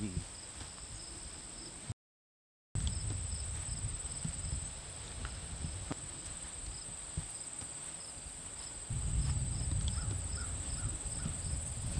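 Steady, high-pitched, pulsing trill of an outdoor insect chorus, under a low rumble on the microphone that grows louder about nine seconds in. The sound drops out completely for under a second about two seconds in.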